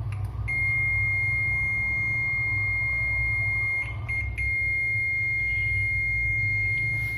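UNI-T UT39A digital multimeter's continuity buzzer sounding one steady high beep, with a brief break a little past halfway. It signals a near-zero resistance across the probed point: a short on the laptop motherboard's power rail. A steady low hum runs underneath.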